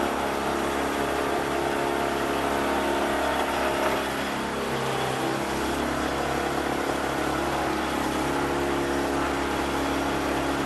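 Motorboat engine running steadily under a wash of water and hull noise, its pitch shifting slightly about halfway through.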